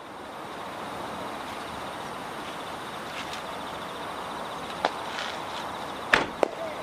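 Steady outdoor airport noise, an even hiss of distant engines and air, with one sharp click about five seconds in and two louder clicks near the end.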